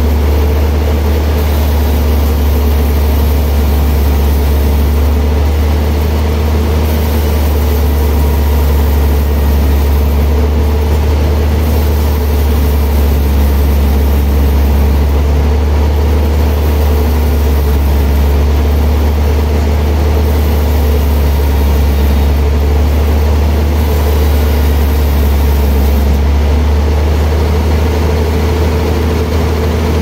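Large band sawmill running steadily with a loud, even low hum.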